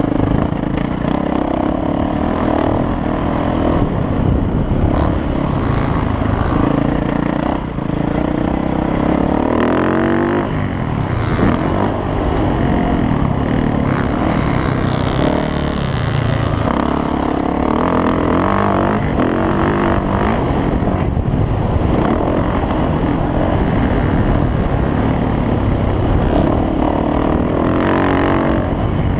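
Dirt bike engine running hard under a rider on a motocross track, its pitch sweeping up several times as it revs out between gear changes.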